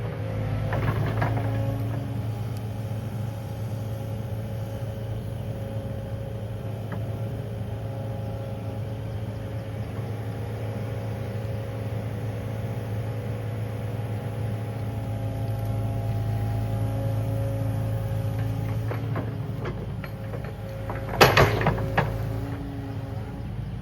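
Kubota KX080 excavator's diesel engine running steadily through digging work, with a short cluster of loud knocks about 21 seconds in.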